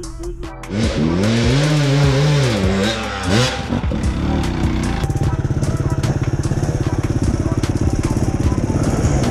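Enduro dirt bike engines: one revs up and down, its pitch rising and falling from about one second to three and a half seconds in, then an engine runs steadily at low revs with a fast, even pulse for the rest.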